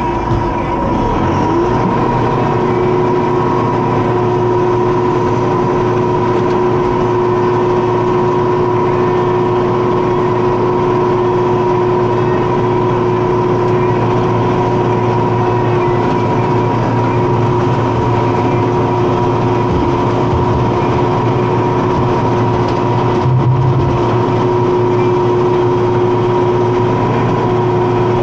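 McCormick X4-60 tractor running steadily with its PTO-driven Zanon boom flail mower engaged, a constant engine note under a steady high whine.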